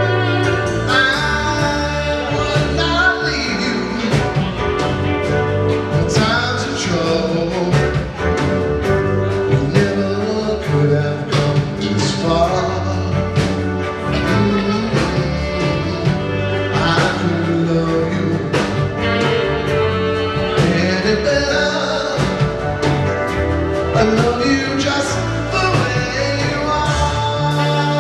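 A live rock band plays with grand piano, drum kit, electric bass and electric guitar, amplified through the stage sound system with a steady drum beat.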